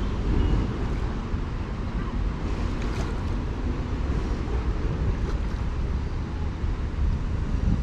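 Steady rushing of a fast mountain stream, with wind buffeting the microphone.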